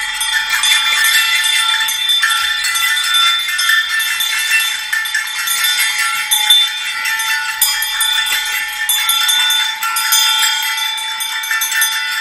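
Russian troika harness bells shaken together: small brass bells hung from a wooden shaft bow (duga) and horse collars strung with round sleigh bells (bubentsy), jingling densely, with one clear bell note ringing steadily through it all. The sound is an imitation of a troika team on the move.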